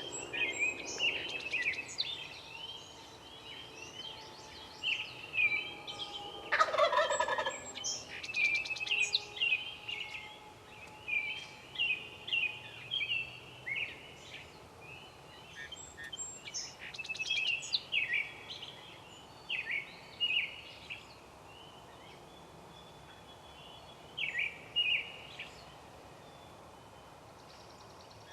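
A wild turkey gobbles once, a loud rattling call about seven seconds in. Around it, songbirds chirp and sing throughout.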